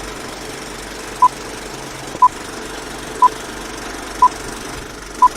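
Five short, high electronic beeps at one pitch, evenly spaced one a second and the loudest sounds here, over the steady running of an idling engine.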